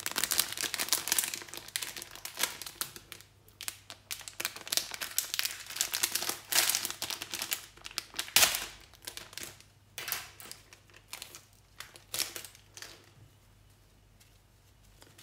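A clear plastic packaging bag crinkling and rustling as hands open it and handle it, in dense irregular crackles with one sharp, loud crackle about eight seconds in; the rustling thins to a few faint crackles near the end.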